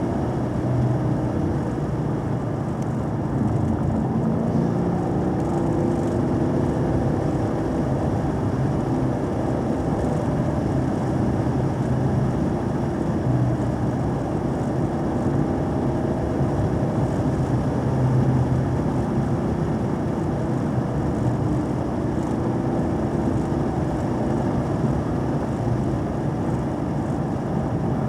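Car engine running under varying load, its note slowly rising and falling with the revs, over steady road and tyre noise.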